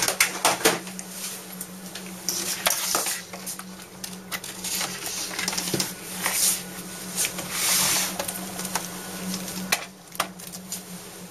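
HP inkjet all-in-one printer printing a colour test page: repeated clicking and clattering from the paper feed and print mechanism, with several short whirring passes of the print carriage over a steady low hum.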